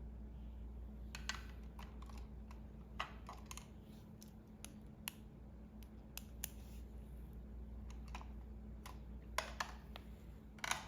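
Scattered light plastic clicks and taps of pens and markers being handled, with caps coming off and clicking back on, irregular and close to the microphone, over a faint steady low hum.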